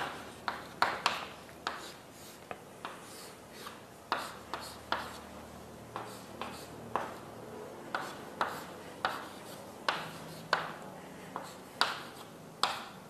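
Pen writing: irregular short taps and scratchy strokes, one or two a second, fairly faint.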